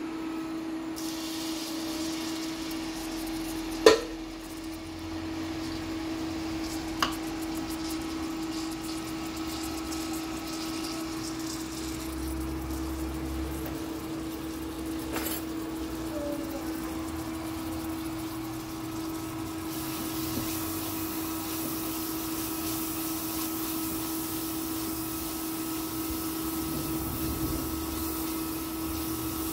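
Steady kitchen hum and hiss during cooking, with a sharp clatter of a utensil or pan about four seconds in and a lighter one about seven seconds in.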